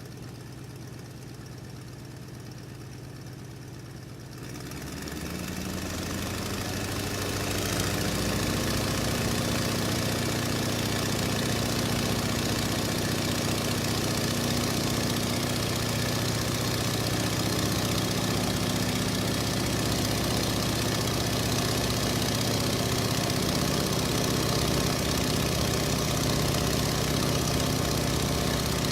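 Biplane's piston engine running at a low idle, then speeding up from about four seconds in to a louder, steady run that holds on.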